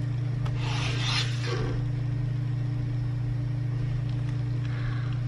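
A steady low hum, with a brief rubbing, swishing noise about a second in.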